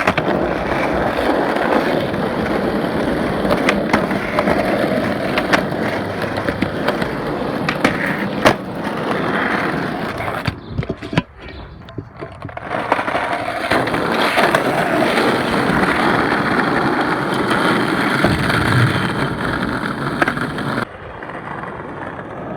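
Skateboard wheels rolling over pavement, with sharp clicks and knocks from the board. The rolling stops for a couple of seconds about halfway through, then starts again.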